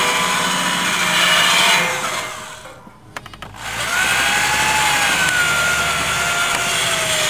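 Corded electric drill spinning a sanding disc against rusty steel fan-housing bars, grinding off surface rust. The sound dies away about two and a half seconds in and comes back a second or so later as a steady motor whine with the disc grinding.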